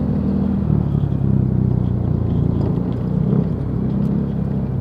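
Motorcycle engine running steadily while riding, a low drone whose pitch shifts slightly a couple of times, under an even rush of road and wind noise.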